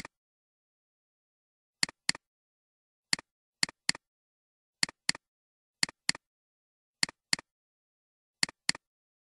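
Computer mouse button double-clicking: about six pairs of sharp clicks, roughly one pair a second, with dead silence between.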